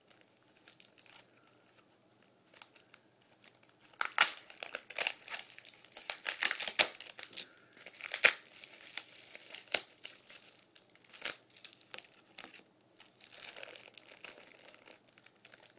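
Packaging crinkling and tearing as a fingerboard deck is unwrapped by hand. It starts about four seconds in as a run of irregular crackles and rustles and thins out near the end.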